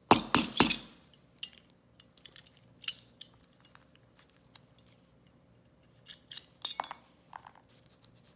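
Clicks and clinks of a Sig Sauer P938 pistol magazine being handled as its follower is worked out of the top. Three sharp strikes just after the start, scattered light ticks, then another cluster of clicks about six to seven seconds in.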